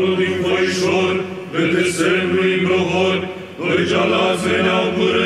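Male Byzantine chant choir singing a slow melismatic line over a steady held low drone (the ison), in phrases with short breaths about one and a half and three and a half seconds in.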